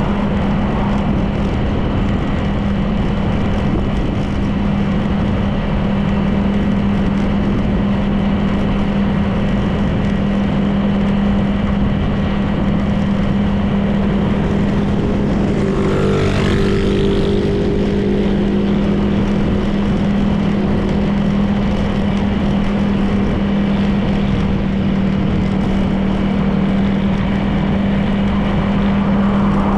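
Honda PCX 160 scooter's single-cylinder engine running at a steady cruise, with road and wind noise. About halfway through, a brief higher-pitched sound rises and fades over the engine.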